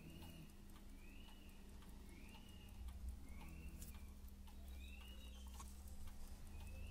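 Favre-Leuba 8-day travel alarm clock ticking faintly. Behind it, a short high chirp that rises and falls repeats every second or two.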